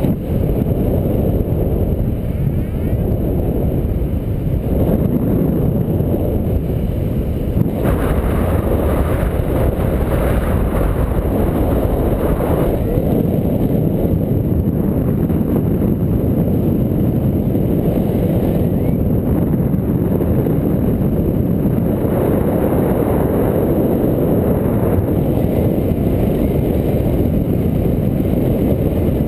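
Wind rushing over a GoPro's microphone in flight under a paraglider: a loud, steady low rumble that swells now and then with the gusts.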